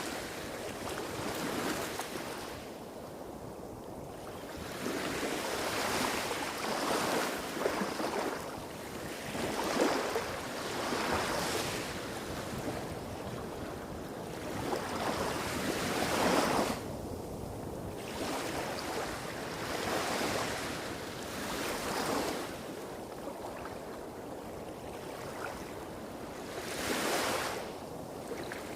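Small, calm waves breaking and washing on a beach, one after another every couple of seconds, over a low rumble of bigger waves hitting rocks a few hundred metres off.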